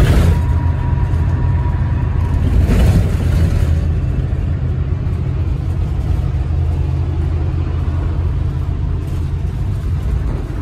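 Steady low road and engine rumble inside a moving shuttle van's cabin, with a brief swell of louder noise about three seconds in.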